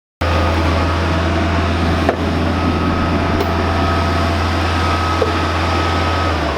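Bobcat 743 skid steer engine running steadily with a deep, even hum. It cuts in abruptly just after a brief gap at the start.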